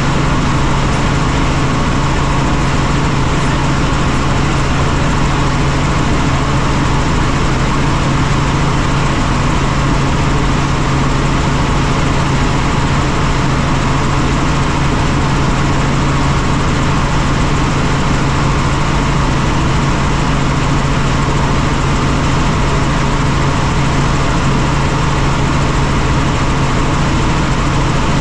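Helicopter in flight: steady, loud drone of the turbine engine and rotors, with a constant low hum under a dense even roar.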